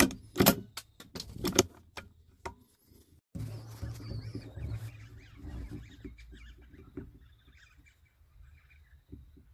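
A quick run of sharp metallic clicks and knocks from the rifle and its scope camera being handled, then, after a sudden break, rustling handling noise over a low rumble that fades away.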